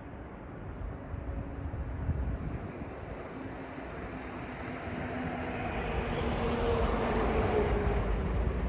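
A vehicle approaching and passing close by, its noise growing louder toward the end, with a faint engine hum that dips slightly in pitch as it goes by.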